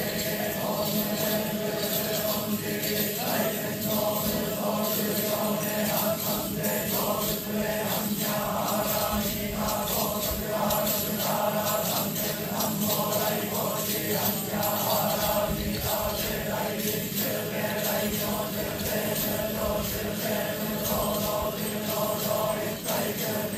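A large group of shugendo pilgrims chanting in unison, a steady droning recitation with no breaks.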